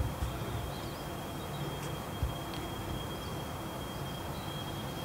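Quiet outdoor background with a thin, steady high-pitched tone and a few faint low thumps.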